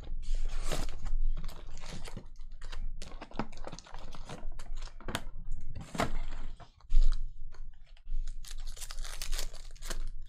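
A cardboard trading-card hobby box being opened and its foil-wrapped packs handled: a dense run of crinkles, rustles and clicks, with one sharp knock about seven seconds in. Near the end a foil pack wrapper is torn open.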